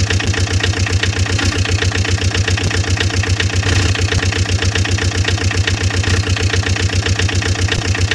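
Engine idling sound, a steady, even chug repeating several times a second with no change in speed.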